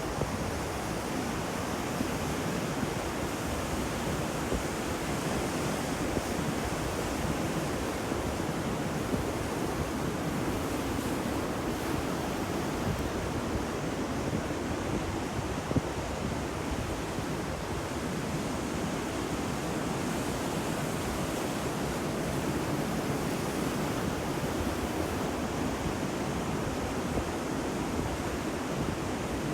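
Ocean surf, a continuous steady rush of waves with no separate breakers standing out.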